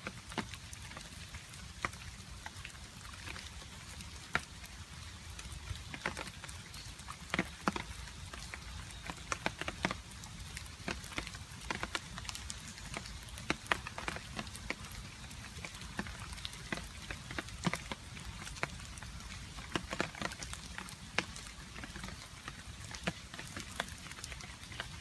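Water drops dripping irregularly onto a hard surface in the rain: scattered sharp taps, several a second, over a steady rain patter with a low rumble underneath.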